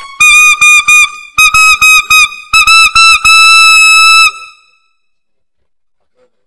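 Alto saxophone, a P. Mauriat 76XVII with a metal mouthpiece, playing a run of short, punchy notes in the altissimo register, each with a slight bend up into the pitch at its start. The notes come in groups, end on a held note about four seconds in, and then stop.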